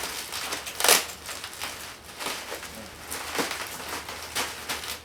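Bubble wrap crinkling and crackling as it is handled and pressed into a packing box, a long irregular run of rustles with one louder crackle about a second in.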